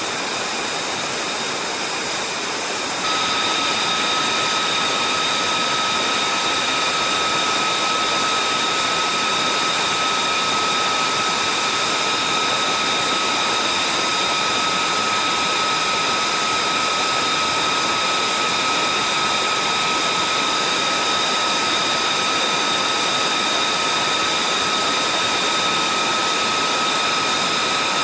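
An F-35A's Pratt & Whitney F135 turbofan running at idle during a hot-pit refuelling: a steady rushing roar. About three seconds in it gets a little louder and a steady high-pitched turbine whine comes in abruptly.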